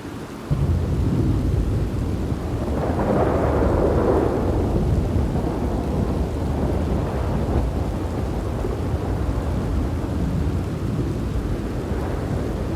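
Thunderstorm: heavy rain with a deep thunder rumble that breaks in suddenly about half a second in, swells to its loudest around three to four seconds in, then keeps rolling under the rain.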